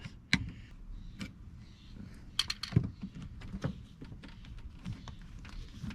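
Aftermarket car door handle being pushed and worked into the door opening: a series of scattered sharp plastic clicks and knocks.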